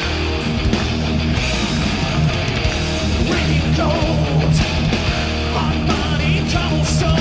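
Power metal band playing live: electric guitars, bass guitar and drums.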